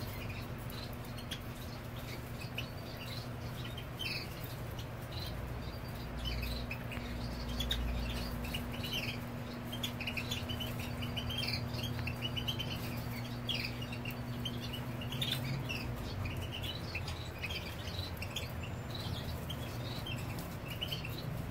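European goldfinches twittering, a steady stream of many short, high chirps from several birds, over a steady low hum.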